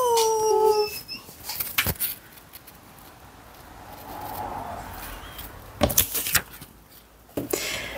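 Tissue paper and a cardboard box rustling and crinkling as a package is unpacked, with a few sharp crackles. Right at the start, a brief pitched vocal sound rises and then falls.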